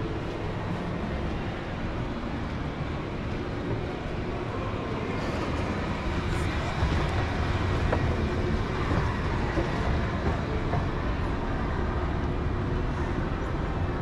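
Escalator machinery running with a steady low rumble and hum under general mall ambience, growing louder about six seconds in as the escalator is boarded.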